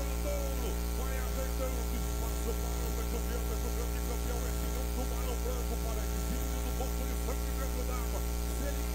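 Steady electrical mains hum with a buzzing stack of overtones, and faint background voices scattered on top.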